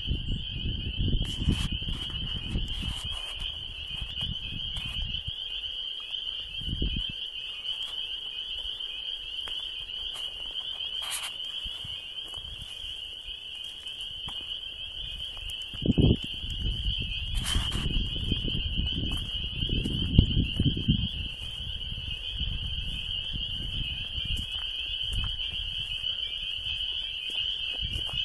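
A continuous, high-pitched chorus of small calling animals at a pool of water, a steady shrill trill that sounds like bugs. Low rumbles and bumps on the microphone come and go, the loudest just past halfway.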